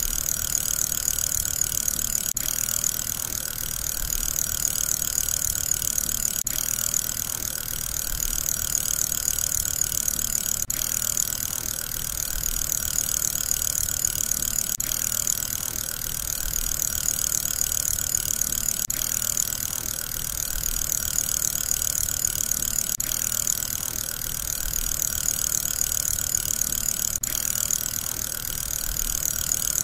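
Steady whirring of a spinning fidget spinner, a hissing whir that swells and dips in a loop repeating about every four seconds.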